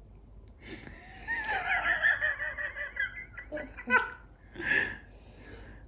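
A man's high-pitched, rapidly quavering giggle from a film soundtrack, played through TV speakers and picked up in the room. It lasts about three seconds and is followed by two short, breathy bursts of laughter.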